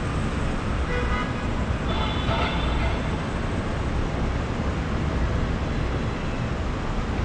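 Steady city traffic din rising from the streets below, with short car-horn toots about one to three seconds in.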